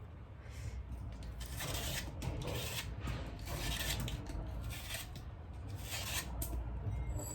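A pear being peeled: a series of short scraping strokes as the skin is stripped off, over a low steady background hum.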